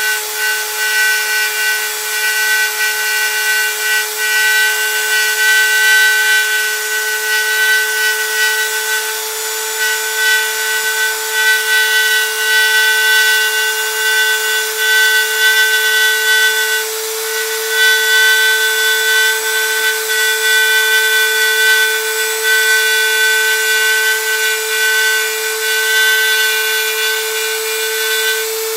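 Small handheld rotary tool's motor running at a steady whine as it cuts a slot along the foam tail, with a light rubbing of the bit in the foam. The pitch creeps slightly higher over the stretch and falters briefly about two-thirds of the way through.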